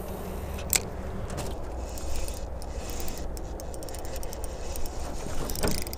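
Fishing reel and rod being worked while retrieving a jerkbait: faint scrapes and ticks with a sharp click about a second in and another near the end, over a steady low rumble of wind on the microphone.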